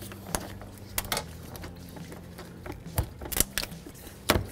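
Scattered sharp clicks and knocks of hands and tools working a rubber radiator hose and plastic engine-bay parts, about six at uneven intervals, the loudest near the end, over a steady low hum.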